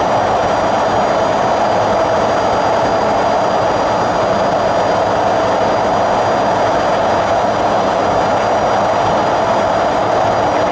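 Train running at speed through a railway tunnel: a loud, steady rush of wheel-on-rail and air noise, enclosed by the tunnel walls.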